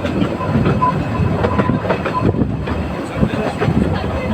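Narrow-gauge train running along the track, a steady rumble with the clatter of wheels over the rails.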